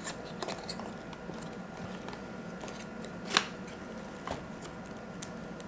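Cardboard camera box being opened by hand: the inner box sliding out of its sleeve with soft scraping and rustling, and a few small clicks, one sharper than the rest about three and a half seconds in.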